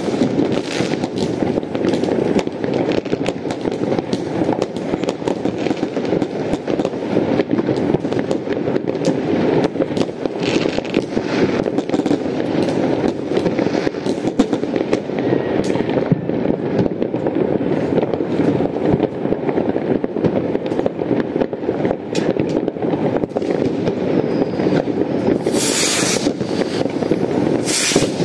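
Many fireworks and firecrackers going off at once across a town: a continuous rumble of overlapping distant bangs with sharp cracks throughout. Two short hissing bursts come near the end.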